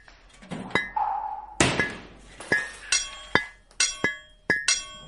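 Repeated sharp metallic clinks, each ringing briefly, at roughly two a second: metal digging tools striking stones and gravel.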